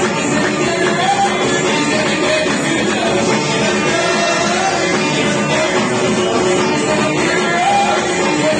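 Live Amazigh tagroupit band playing: banjo and electric guitar over a steady beat of frame drums and hand drums, with a voice singing.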